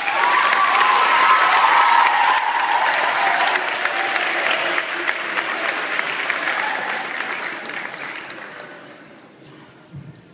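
Audience applauding, with a few high cheering voices over the clapping in the first couple of seconds. The applause dies away gradually over the last few seconds.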